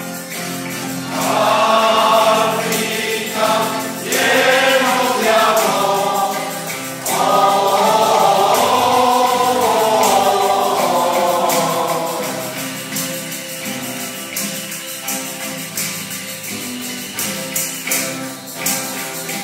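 Mixed choir singing a Spanish Christmas carol (villancico), accompanied by strummed guitars and a steadily shaken tambourine. About twelve seconds in the voices stop, and the guitars and tambourine play on alone.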